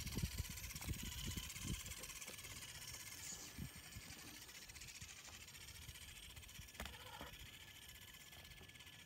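Micro-scale RC crawler's tyres and chassis knocking and bumping over weathered wooden planks as it crawls, the knocks growing fainter and sparser as it moves away.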